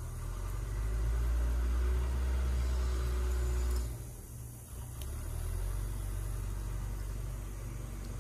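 A low, steady engine-like rumble running close by. It is loudest for the first four seconds, drops away briefly, then comes back a little softer.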